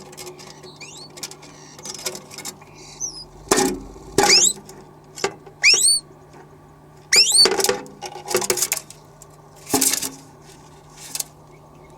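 Starlings in a dryer vent calling: a string of short rising whistles mixed with harsh rasping bursts and clicks, over a steady low hum.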